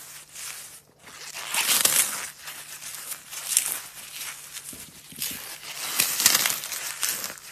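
Dry brown floral foam crunching and crumbling as gloved hands crush it, in repeated surges of scratchy crackle, loudest about two seconds in and again near six seconds.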